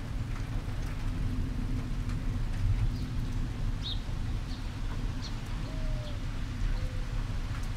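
Thunderstorm ambience: a low, fluctuating rumble throughout, with a few short, high bird chirps about four seconds in and again a little later.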